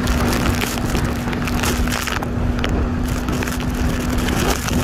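Wind buffeting the microphone and water rushing and splashing under a banana boat towed at speed, with a steady hum from the towing jet ski's engine.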